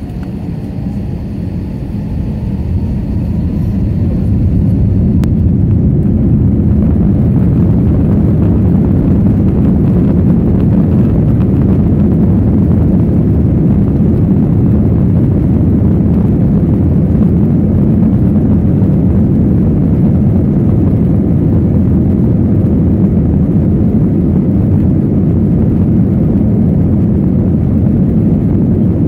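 Airbus A321 jet engines and airframe heard from inside the passenger cabin as a low, steady rumble while the airliner taxis. It grows louder over the first four seconds, then holds level.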